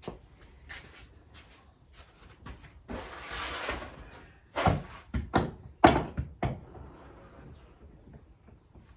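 Motorcycle fork parts being handled and worked: light clicks, a scraping slide about three seconds in, then a quick run of five or six sharp metal knocks.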